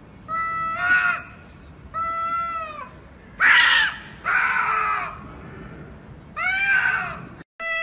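Domestic cats yowling in an aggressive face-off: five drawn-out calls, each rising then falling in pitch, about a second and a half apart. The loudest and harshest comes about three and a half seconds in.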